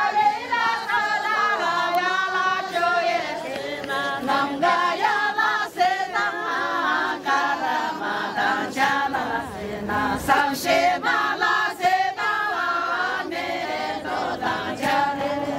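A group of women singing together unaccompanied, a traditional syabru song sung while dancing in a line.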